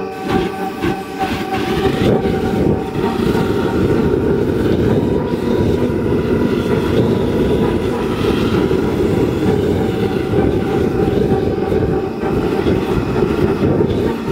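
Steady, loud roaring rumble of a flame jetting from a fire-breathing jack-o'-lantern, with faint steady tones above it.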